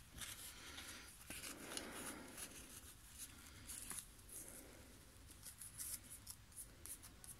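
Faint rustling and irregular small clicks of paper and card being handled as a piece of a handmade paper-and-fabric envelope album is fitted back into place.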